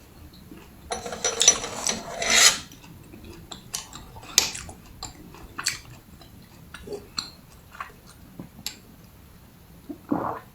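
Close-miked drinking sounds: a noisy sip lasting over a second about a second in, followed by scattered small clicks and a short swallow-like sound near the end.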